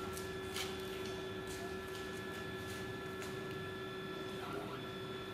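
Stepper motors of a CNC hot-wire foam cutter whining steadily as the machine drives the heated wire through polystyrene. The whine changes briefly about four and a half seconds in, as the motion changes.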